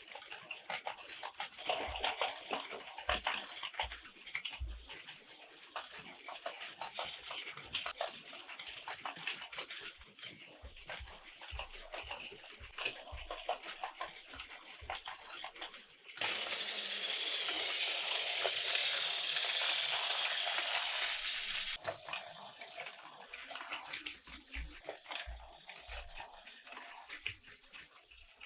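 Toy trains running along their track, with a dense, irregular rattle of small clicks. A louder steady hiss lasts about five seconds a little past the middle.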